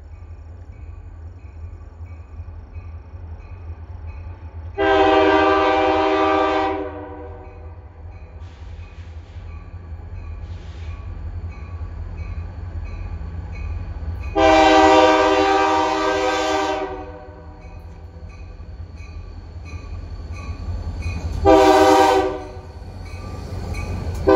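Diesel freight locomotives approaching with engines rumbling, the lead unit sounding its air horn in two long blasts and a short one, with a final long blast starting right at the end: the long-long-short-long grade-crossing signal. The engine rumble grows louder as the train nears.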